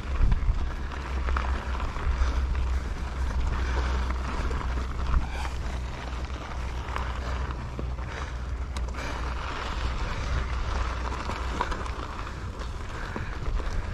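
Steady low rumble with a rushing noise, like wind on the microphone, and a few light ticks.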